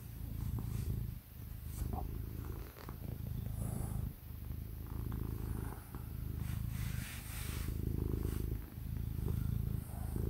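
Black-and-white domestic cat purring close up: a steady low rumble that breaks off briefly about every second and a half as it breathes in and out.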